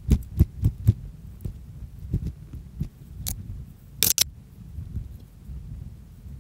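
A small folding spade chopping into sandy forest soil: four quick heavy thuds in the first second, then scattered lighter digging knocks. A brief, sharp scrape about four seconds in, the blade grating on something hard in the hole.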